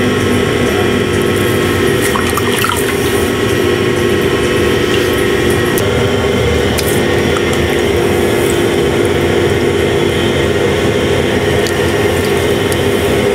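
Electric potter's wheel running at a steady hum, with wet clay and water squelching under the potter's hands and sponge as a pot is thrown.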